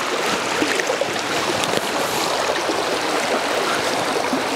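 Shallow river water running fast over stones in a riffle: a steady rush of water.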